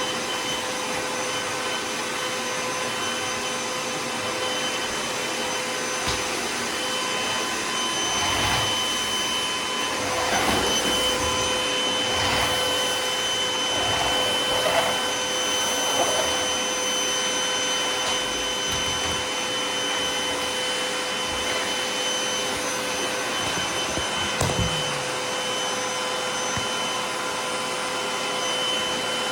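Sanitaire MightyMite canister vacuum running on bare floor: a steady high motor whine over the rush of suction, with the airflow swelling and fading several times midway as the floor tool is pushed and pulled, and a couple of light knocks.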